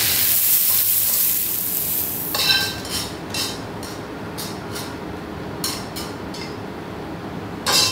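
Bean sprouts and greens sizzling as they are stir-fried with chopsticks in a hot wok. After about two seconds the sizzle fades and chopsticks clink and scrape against the wok and plate as the vegetables are moved out; a short hiss comes near the end.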